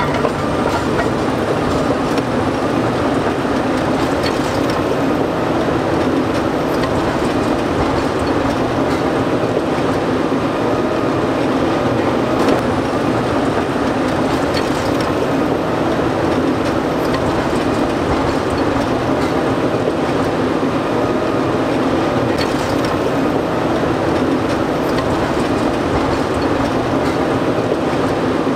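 Caterpillar D11T bulldozer ripping rock: its C32 V12 diesel engine running steadily under load, with the clatter of its steel tracks as the rear ripper shank tears through the ground.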